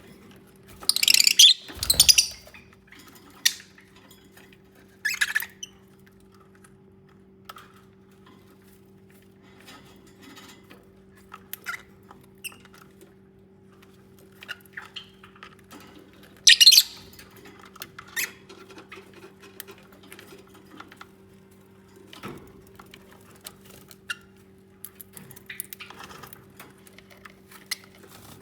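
Lovebirds giving short, shrill chirps: two loud ones a second or two in, another about five seconds in, and one past the middle, with faint scattered clicks between them over a steady low hum.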